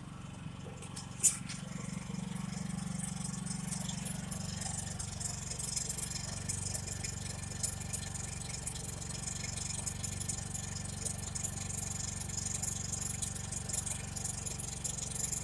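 Champion 6250-watt open-frame inverter generator running steadily in eco mode under a light load, a low even hum with some rattle. One sharp knock about a second in.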